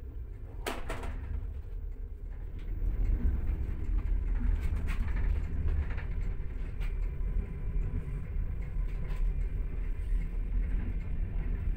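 Steady low rumble of a moving passenger train, heard from inside the carriage, with scattered clicks and knocks; one sharp knock comes a little under a second in.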